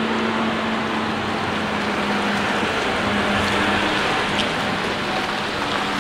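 John Deere tractor's diesel engine running steadily as it drives past, towing a twin-axle muck trailer, a little louder about halfway through as it passes.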